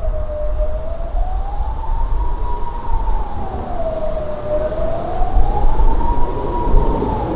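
Kockum Sonic Delta electronic civil-defence siren sounding a slow rising-and-falling wail that goes up and down about every four seconds. This is the pattern of the Swiss general-alarm signal, heard here during the annual siren test.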